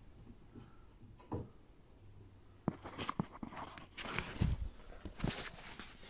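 Camera being picked up and carried by hand: a run of clicks, knocks and rustling handling noise starting about two and a half seconds in, with a single faint tap before it.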